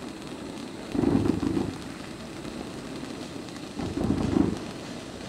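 Dominator July's Surprise firework in its fountain stage, spraying sparks with a steady hiss. The spray swells louder twice, about a second in and about four seconds in.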